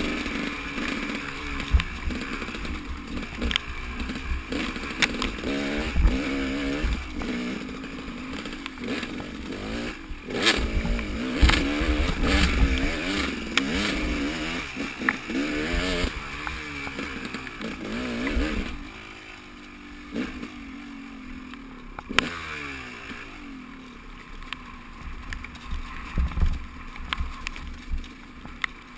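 Motorcycle engine running on a ride, its note repeatedly rising and falling as it speeds up and slows. After about 19 s it drops to a quieter, steadier note.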